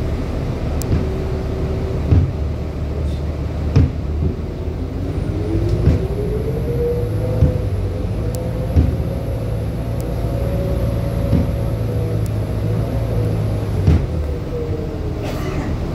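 Bus engine and cabin noise heard from inside the moving bus, with a drivetrain whine that rises in pitch about five seconds in, holds steady, then falls near the end. Short dull thumps come every second or two over it.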